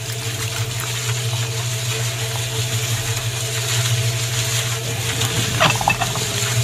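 Small electric motor of a miniature chain-driven concrete mixer humming steadily as it turns the steel drum, with a brief sharper sound about five and a half seconds in.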